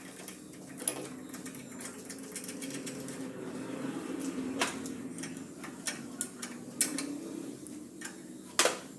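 Scattered metal clicks and clinks from a screw-type valve spring compressor being fitted and tightened on a Greaves engine's cylinder head to press down the valve spring, the sharpest click near the end, over a faint steady hum.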